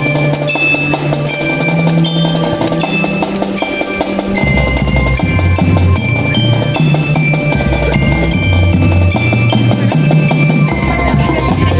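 Marching band playing: mallet percussion such as glockenspiel and marimba carries a melody of quick high notes over drums, with a low held bass line that gets louder about four and a half seconds in.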